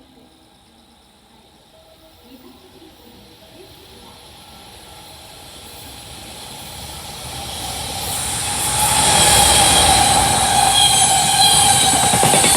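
Electric-hauled freight train approaching at speed, growing steadily louder over several seconds until it rushes past close by, with a steady whine once it is alongside.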